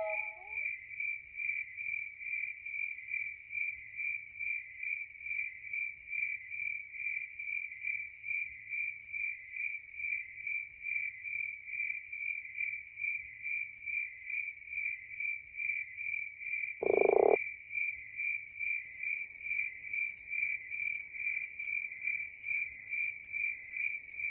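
Night insect chirping, likely crickets, pulsing steadily about two and a half times a second. A single short, louder croak comes about seventeen seconds in, and rasping high insect calls join in over the last five seconds.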